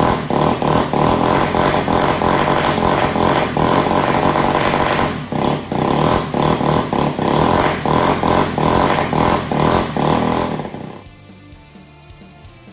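Supercharged engine of a 1/4-scale RC car running loud on the bench, its throttle worked by hand so the note dips again and again, then shutting off about 11 seconds in.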